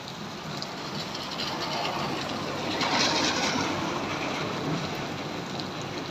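Heavy rain falling steadily on wet ground and puddles. A louder rushing swell builds to a peak about halfway through and then eases.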